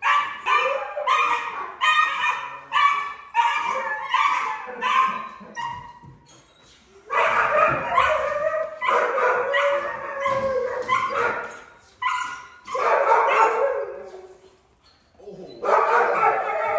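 Working-dog puppies barking excitedly on their leads at a bite tug. There are quick sharp barks about two a second for the first six seconds, a short lull, then longer unbroken runs of barking from about seven seconds in.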